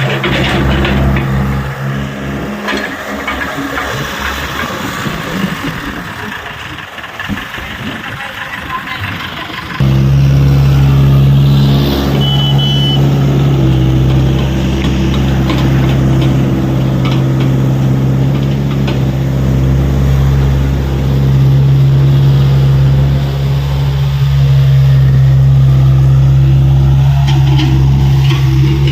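Diesel engine of heavy earthmoving machinery running. For about the first ten seconds it is softer and mixed with clattering; then it cuts abruptly to a loud, steady engine hum that holds to the end.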